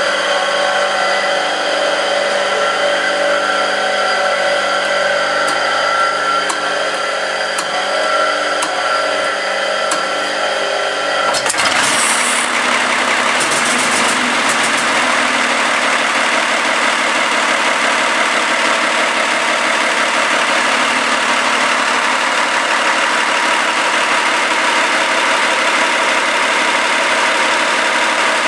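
Large multi-cylinder diesel engine being started: a steady whine of several held tones for about eleven seconds, then the engine catches and runs with a loud, dense clatter.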